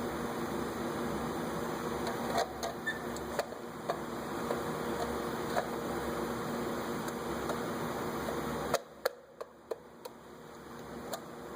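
Steady mechanical hum with light clicks and knocks, like small parts or tools being handled. The hum cuts out suddenly about nine seconds in, a few sharp clicks follow, and it comes back up near the end.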